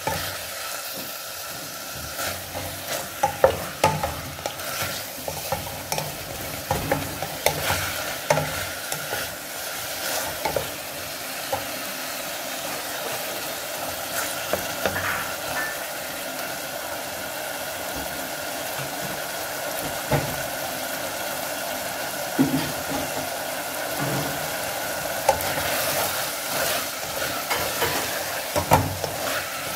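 Beef pieces sizzling in a hot pot as a spatula stirs them, with frequent short scrapes and knocks of the spatula against the pan over a steady frying hiss.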